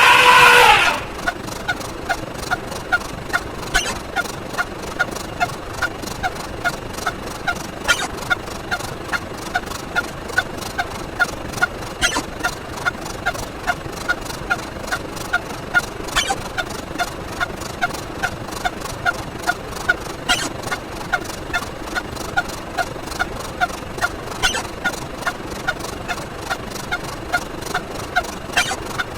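A short pitched sound effect repeating rapidly, about three times a second, with a sharper click about every four seconds. A loud falling swoop sounds right at the start.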